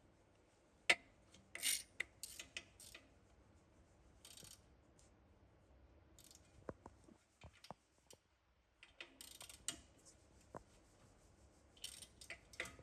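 Faint scattered clicks and short scratchy rasps of a plastic cable tie being pulled through its ratchet and handled, fastening the ABS sensor wire on a car's suspension.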